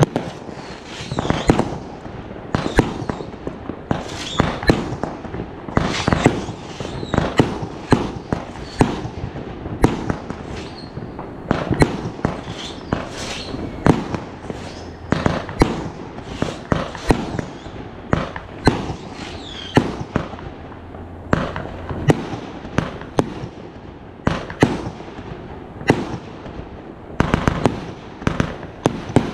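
Fireworks bursting in rapid succession: sharp bangs, often several a second, with continuous crackling between them and a tight cluster of bangs near the end.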